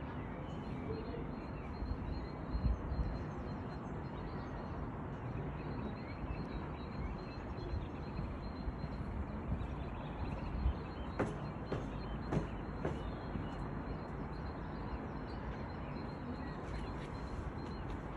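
Wind blowing over the microphone, a steady rush with low gusts, strongest about three seconds in and again just past halfway, and a few faint clicks shortly after.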